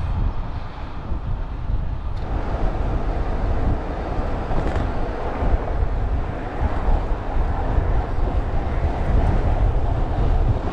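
Wind rushing over a GoPro action camera's microphone while cycling, a steady low rumble mixed with road and traffic noise.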